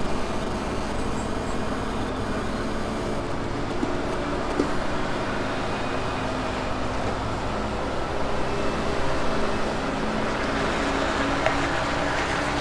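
Diesel engine of an HGV tractor unit running steadily at low revs while the lorry manoeuvres slowly, heard from inside the cab.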